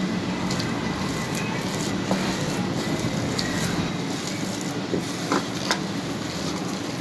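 A spoon tapping and scraping against a bowl while a mashed potato cutlet filling is mixed, a few light clicks over a steady hiss.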